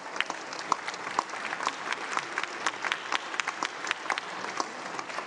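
Congregation applauding, steady dense clapping from many people.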